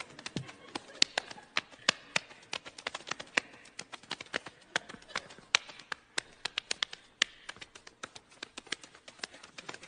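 Body percussion: hands slapping and patting the chest, arms and thighs in a fast patter of sharp smacks, several a second, some hits much louder than others.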